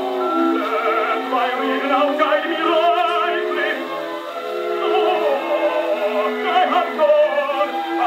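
An acoustically recorded 78 rpm opera record playing on a Victrola 2-55 portable phonograph: an orchestra with a singing voice using wide vibrato. The sound is narrow, with no deep bass and little treble.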